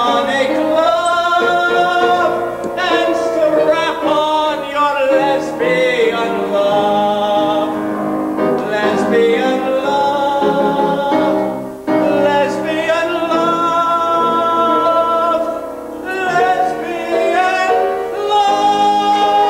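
Two voices singing a theatrical duet with piano accompaniment.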